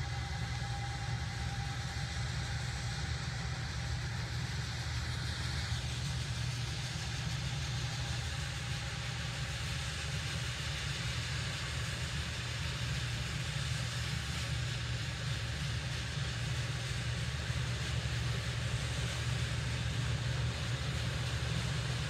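Harvest machinery running steadily across a corn field: a low, even engine drone while a grain cart unloads corn into a truck. A faint higher whine runs under it for the first six seconds or so.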